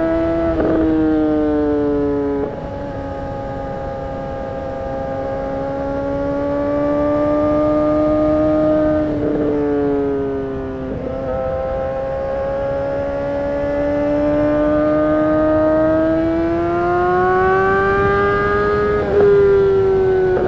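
2008 Honda CBR600RR inline-four engine under way, its pitch climbing gradually. The pitch drops sharply at several gear changes: about half a second in, then near 2.5 s, 9 s, 11 s and 19 s.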